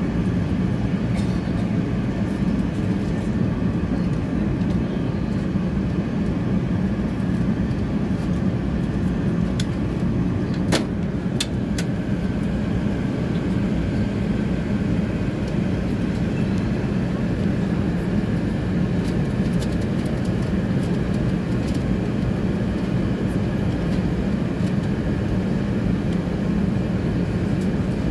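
Steady cabin roar of an Airbus A380 airliner in cruise, a deep even rush of engine and airflow noise. A sharp click about eleven seconds in, followed by a couple of lighter ones.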